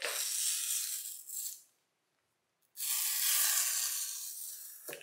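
Clear packing tape being peeled off a cardboard shipping box: two long ripping pulls, the second starting about three seconds in.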